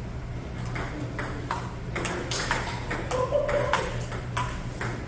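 Table tennis rally: the plastic ball clicking sharply off the paddles and the table, about a dozen quick taps at uneven spacing, starting about a second in.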